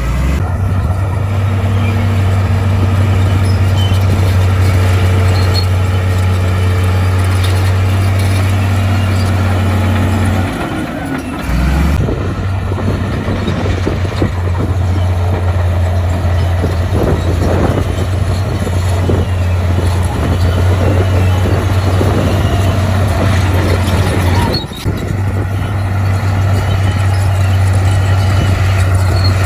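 Heavy diesel earthmoving machinery, a bulldozer or dump truck, running steadily under work, with irregular knocks and rattles in the middle stretch. The engine sound breaks off briefly about ten seconds in and again near the end.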